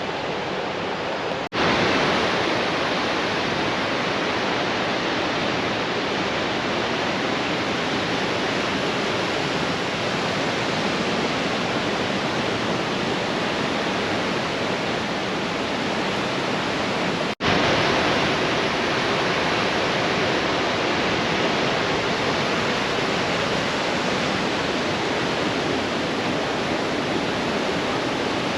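Rushing water of a river waterfall, a steady even hiss of falling water. It breaks off for an instant twice, about a second and a half in and again past the middle, and comes back slightly louder each time.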